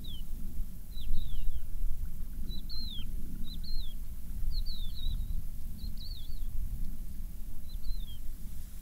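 A small bird calling: short high chirps that slide downward, in twos and threes, repeated about once a second. A steady low rumble runs underneath.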